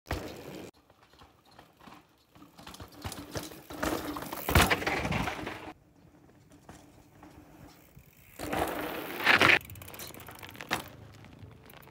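Mountain bike tyres rolling and crunching over dirt and gravel, with a sharp thump about four and a half seconds in, and the bike rolling close past again near the end.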